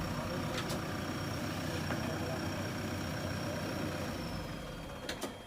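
JCB 3DX backhoe loader's diesel engine running steadily, with a thin high whine that slides down and fades near the end. A couple of short clicks come just before the end, as the engine sound drops away.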